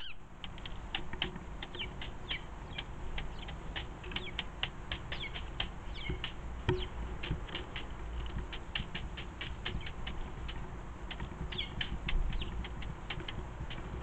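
Feral pigeon pecking seed on a wooden bird table: a rapid, irregular run of sharp ticks, several a second, with one heavier knock about two-thirds of the way in. A few short falling chirps from small birds come in between.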